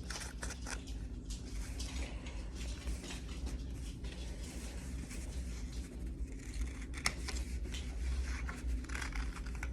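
Scissors cutting construction paper: a run of short snips and clicks at irregular intervals.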